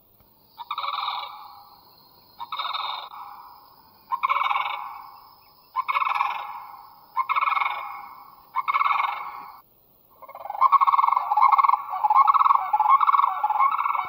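Recorded sandhill crane calls played from a phone speaker, really loud: six calls about a second and a half apart, then, from about ten seconds in, unbroken calling.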